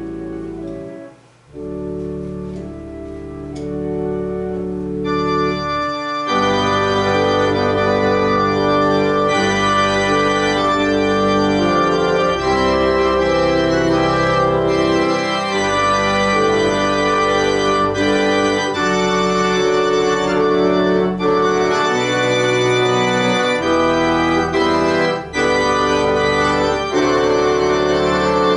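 Church organ playing slow, held chords; it starts softly and swells to a fuller, brighter sound about six seconds in.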